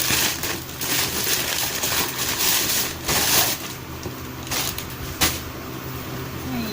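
Shoe parcel packaging being handled and opened: irregular bursts of crinkling and rustling, with a sharp click about five seconds in, over a steady low hum.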